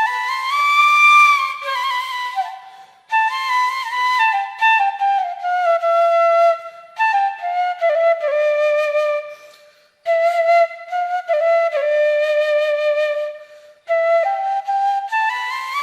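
Solo flute music: one flute playing a slow, ornamented melody in phrases, with short breaks between them about three, ten and fourteen seconds in.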